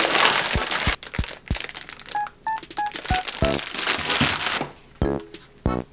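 Paper grocery bag and plastic food packaging rustling and crinkling as groceries are unpacked, in two long stretches, with several light knocks as packs are set down on a table.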